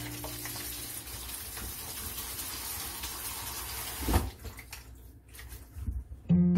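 Kitchen tap water running and splashing through corn silk and husked ears of corn in a plastic colander over a stainless basin. The water stops about four seconds in with a sharp knock, followed by a few handling bumps. Music starts just before the end.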